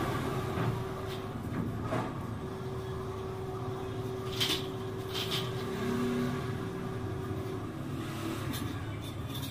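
A steady low hum with a few light clicks and knocks, as a child's bicycle is handled: its handlebar and wheel parts being moved and set.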